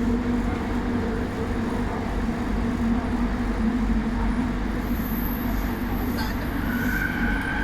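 LRT train running between stations, heard from inside the carriage: a steady rumble with a constant motor hum. A thin higher whine comes in near the end.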